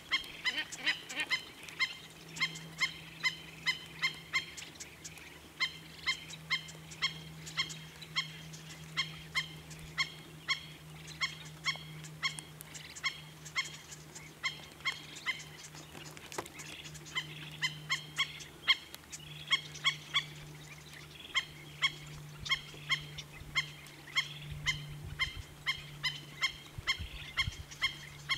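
Black-necked stilt calling: a long steady series of sharp, dog-like yapping calls, about two or three a second.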